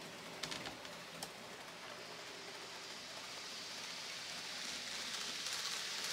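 N gauge model train running on the layout's track: a steady rushing noise of wheels on rail that grows louder over the second half. A few sharp clicks come in the first second and a half.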